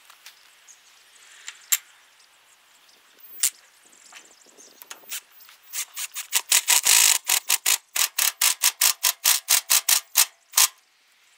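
Cordless drill/driver fastening a mini-split outdoor unit's mounting feet to a concrete slab with Tapcon concrete screws. A few scattered clicks come first, then about halfway through a rapid run of sharp, loud clicks, several a second, lasting about five seconds.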